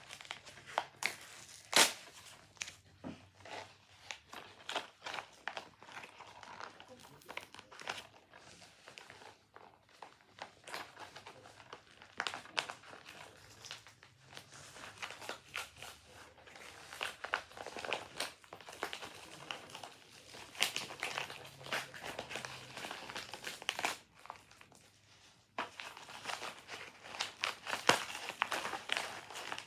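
Plastic packaging crinkling and tearing as it is pulled open by hand, in irregular crackles with a sharp snap about two seconds in.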